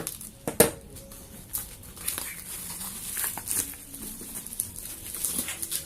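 A parcel being opened by hand: packaging rustling and crinkling in irregular bursts with scattered clicks, and one sharp knock about half a second in.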